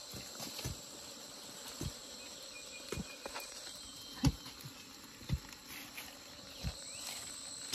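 Insects calling in a steady high-pitched, cricket-like chorus, with a dozen or so short dull thuds at irregular intervals.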